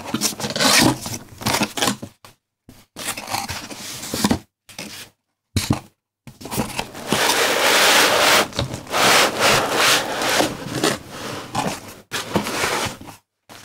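Corrugated cardboard box being opened by hand: the lid, flaps and tabs scraping and rubbing in irregular stretches broken by short silent gaps, busiest in the second half.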